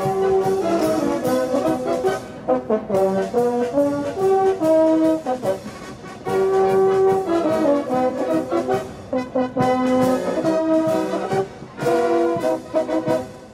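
Background music: a brass-led orchestral piece with held notes and short rhythmic stabs.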